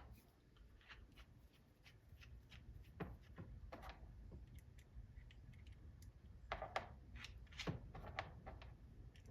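Faint, scattered clicks and taps of small clockmaking tools and parts being handled on a workbench, with a few louder short knocks near the middle and toward the end.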